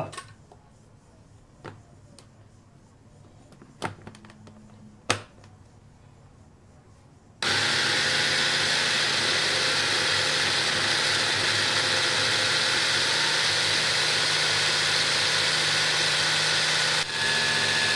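Small electric food processor grinding ricotta. First come a few clicks and knocks as the lid and motor unit are fitted. About seven seconds in the motor starts and runs loud and steady for about ten seconds, with a brief break near the end, then stops.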